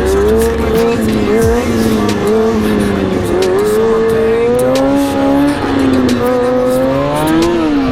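A Kawasaki Ninja ZX-6R 636's inline-four engine running under throttle, its pitch rising and falling smoothly as the revs change, with a quick drop and rise just after the end. Sharp clicks and ticks are scattered through it.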